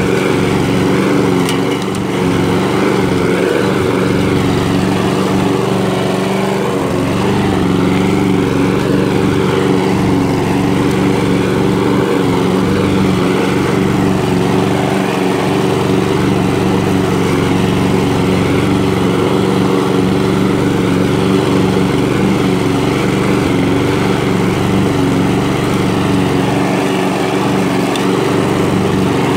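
Walk-behind gasoline push mower's small engine running steadily at a constant speed while it is pushed across the grass, cutting.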